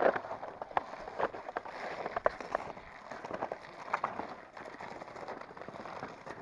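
Footsteps crunching on packed snow and ice, an irregular run of short crunches that eases off after about four seconds.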